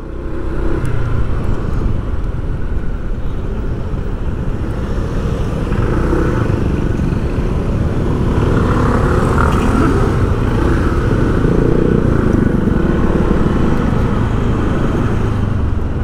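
Steady motor-vehicle and road traffic noise, a continuous rushing drone that gets a little louder about halfway through.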